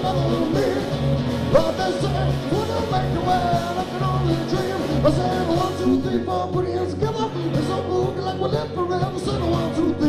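A rock band playing live, with a singer over the band.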